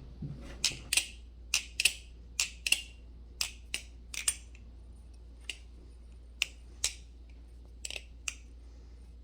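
Marcolo C116 aluminium-handled balisong trainer being flipped: sharp clicks as the handles and blade knock together, coming irregularly and more often in the first half.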